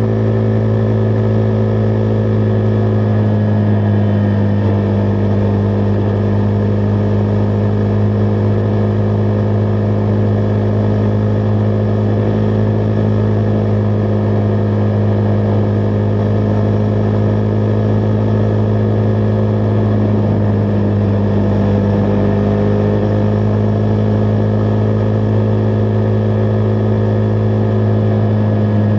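Husqvarna Vitpilen 401's single-cylinder engine running steadily while the motorcycle cruises at a constant speed. The engine note holds one pitch throughout, with no gear changes or revving.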